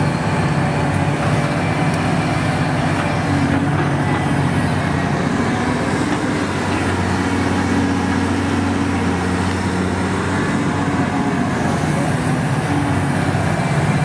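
Caterpillar hydraulic excavator's diesel engine running steadily while it digs, its note shifting a little in pitch a few times.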